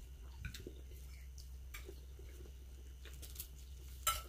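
Faint, scattered small clicks and taps of people eating at a table: cutlery touching plates and chewing, with a couple of louder clicks near the end, over a low steady hum.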